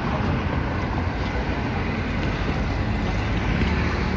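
Street traffic: cars driving past close by on a city avenue, a steady rumble of engines and tyres, with some wind noise on the microphone.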